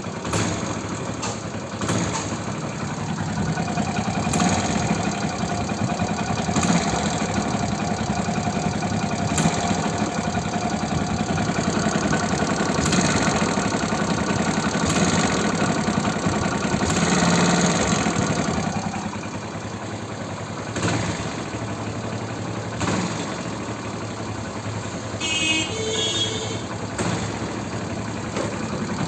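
Hero Splendor Plus single-cylinder four-stroke engine running and being blipped sharply with the throttle, giving a 'phat', whistle-like puff of air escaping near the cylinder head on the revs, then settling back to idle about two-thirds of the way through. The leak is the sign of a failed O-ring at the cylinder head.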